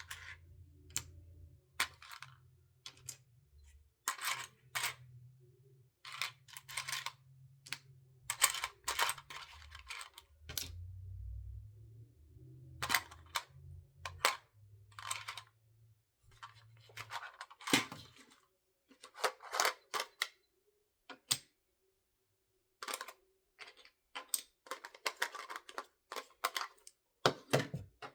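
Plastic Lego pieces clicking and rattling as they are handled and pressed together, in scattered clusters of sharp clicks.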